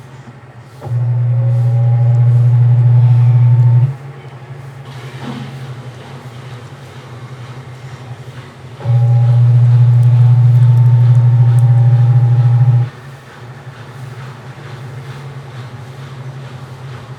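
Midea 12 kg washing machine's motor running in bursts of three to four seconds with a low hum and a faint rising whine, separated by pauses of about five seconds, as the machine agitates the wash.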